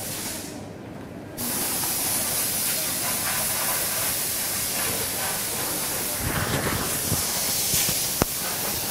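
Steady, airy hiss of rushing air on an electronics assembly line. It fades briefly about half a second in and comes back louder, with a few soft low knocks around six to seven seconds in and a sharp click just after eight seconds.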